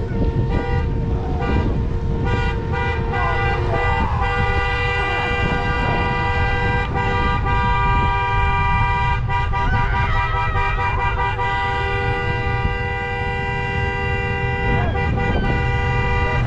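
Many car horns honking at once, a chorus of steady tones at different pitches held without pause, over a low rumble: cars sounding their horns in celebration.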